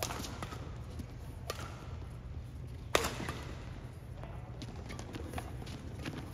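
Badminton rackets hitting a shuttlecock in a doubles rally: a string of sharp pops, about one a second, the hardest about three seconds in. A steady low hum runs underneath.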